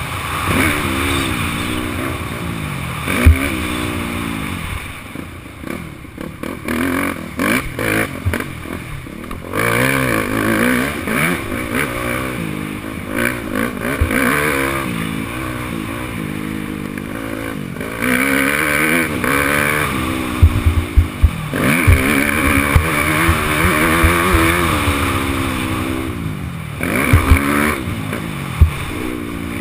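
Yamaha YZ250F's 250 cc single-cylinder four-stroke engine under hard throttle while racing, its pitch rising and falling over and over as the rider accelerates, shifts and backs off. Sharp knocks come through a few times, most thickly around the middle of the stretch.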